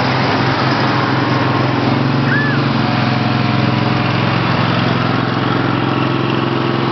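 Small engine of a slow-moving parade vehicle running steadily as it passes, with a steady low hum that swells in the middle and eases off near the end.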